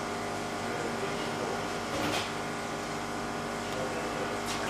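Steady mechanical hum made of several steady tones, with two faint, short rustles about two seconds in and near the end.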